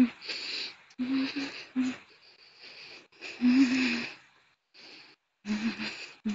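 A woman's audible breathing: short breaths with a hum of voice in them, coming roughly once a second, with a longer sighing breath about three seconds in.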